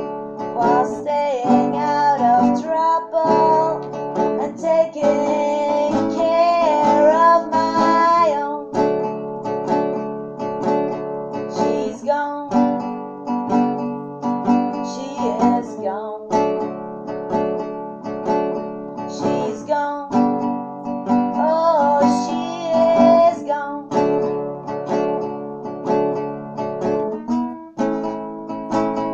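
Nylon-string classical guitar strummed in chords, with a woman singing over it in several sustained phrases, between which the guitar plays on alone.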